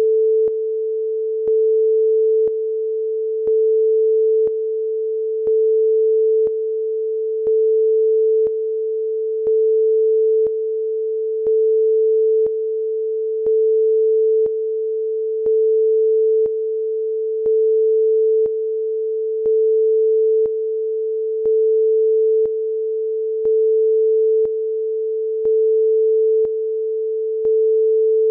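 Sine-wave test tone: one steady mid-range pitch that steps between louder and quieter every second, with a faint click at each step.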